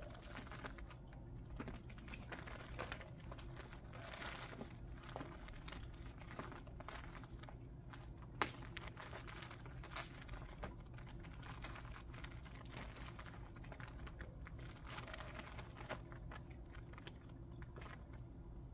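Crinkling, rustling handling noises with scattered light clicks, and two sharper clicks about eight and ten seconds in.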